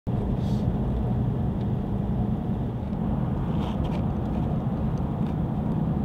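A car driving along at road speed, heard from inside the cab: a steady low rumble of engine and tyres.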